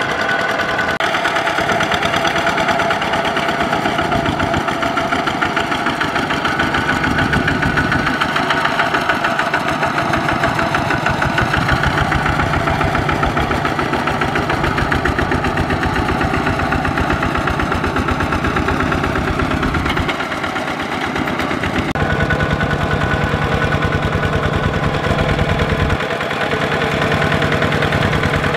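Kubota RT120 single-cylinder diesel engine of a walk-behind power tiller running steadily under load as its cage wheels work through a flooded paddy, with rapid even firing pulses. Its note shifts and the loudness dips briefly twice near the end.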